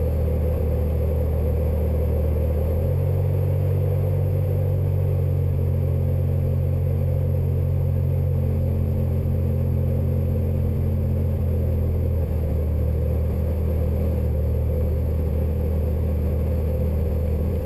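Robin DR400 light aircraft's piston engine and propeller running at low taxi power, a steady low drone heard from inside the cockpit. Its note shifts slightly about three seconds in.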